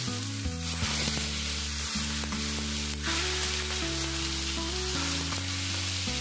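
Smoking-hot oil poured over minced garlic, chili flakes, Sichuan peppercorns and sesame seeds on fish in broth, sizzling steadily, with background music underneath.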